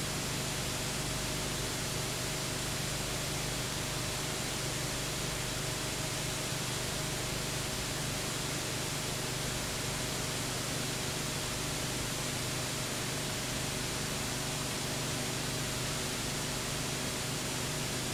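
Steady hiss with a faint low hum underneath and no other sound: the background noise of a silent home-movie transfer.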